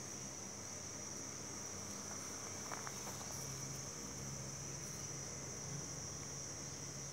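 Insects trilling steadily at a high pitch, an unbroken outdoor chorus, with one brief click about three seconds in.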